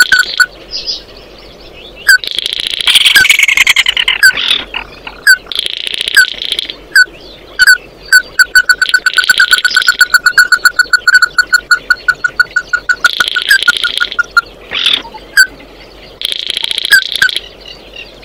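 Ruddy-breasted crake calling: long runs of hard, evenly repeated notes, several a second, broken every few seconds by about a second of harsher, higher trilling.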